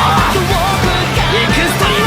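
Loud J-rock song playing: a dense band sound with a wavering melody line on top.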